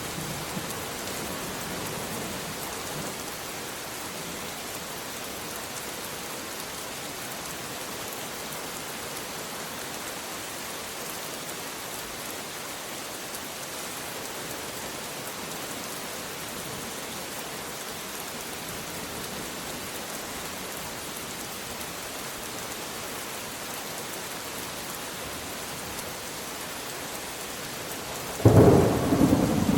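Steady heavy rainfall hissing evenly, then a loud clap of thunder rolling in near the end.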